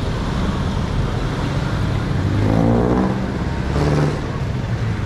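Street traffic: a steady low engine rumble, with a motor vehicle passing close and getting louder about halfway through, its engine note shifting in pitch, then a second brief swell about four seconds in.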